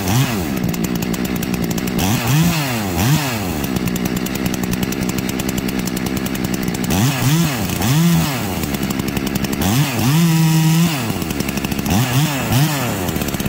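Two-stroke chainsaw idling while its carburetor's low-speed jet is tuned with a screwdriver. It is blipped to check throttle response: several quick revs up and back down to idle, and one held higher for about a second, some ten seconds in.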